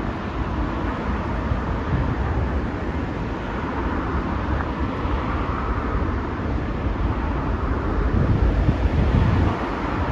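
Wind buffeting the microphone over a steady background rumble, with a stronger gust about eight seconds in that eases off near the end.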